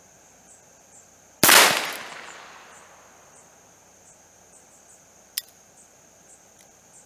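A single shot from a .22 Heritage Rough Rider single-action revolver about a second and a half in, its echo trailing off over about a second, followed by a short sharp click a few seconds later. Insects trill steadily throughout.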